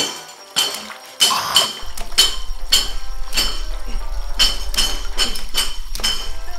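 Rhythmic sound-design clinking, about two sharp strikes a second, each with a short high ring. A low steady hum comes in under it about two seconds in.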